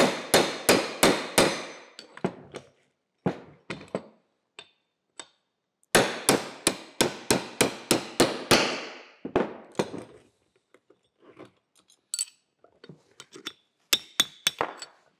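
Hammer striking a steel pin punch to drive out the pin that holds a winch drum to its collar: rapid runs of sharp metal taps, several a second, broken by pauses. Twice early on and once near the end the strikes come in quick succession, with quieter clinks of handling in the middle.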